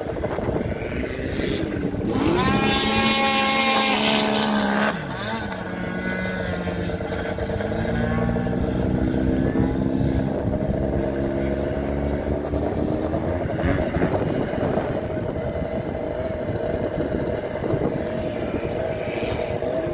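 Racing engines passing by. One runs loud and close from about two seconds in, and its pitch drops as it goes past around five seconds. Lower engine notes then climb slowly as they run on.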